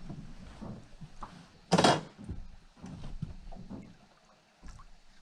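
Handling knocks and thumps close to the microphone, with one louder clattering thump about two seconds in.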